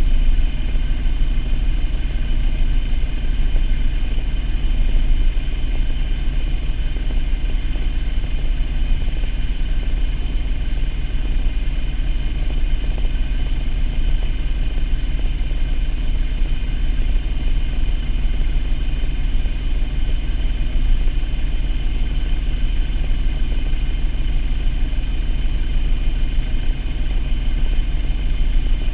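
2003 Mitsubishi Eclipse GT's 3.0 V6 engine idling steadily, with a strong low rumble. It is the idle of an engine throwing a P0300 random-misfire code, a misfire that shows only at idle.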